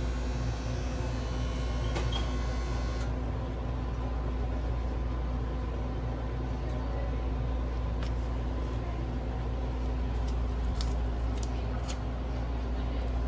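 Steady low machine hum of kitchen equipment, with a few faint light clicks and taps from handling, mostly near the end.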